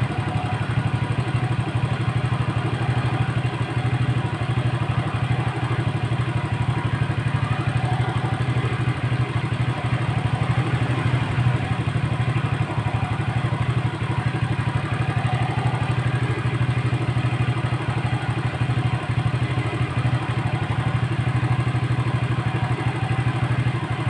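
Motorcycle engine idling steadily, a low even putter with no change in speed.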